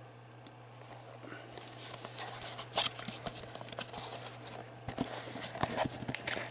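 Cardboard booster box being handled, fingers working at its flaps: rustling and scraping of the card with many sharp clicks, starting about a second and a half in.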